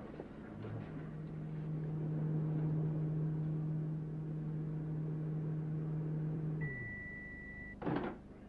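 Microwave oven running with a steady low hum, which stops about six and a half seconds in. Its single beep of about a second follows, then a clunk.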